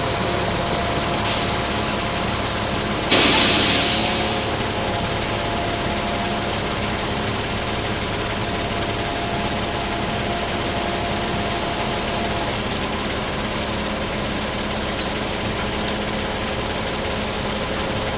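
Concrete mixer truck's diesel engine running steadily, with a sudden loud air-brake hiss about three seconds in that fades over a second or so.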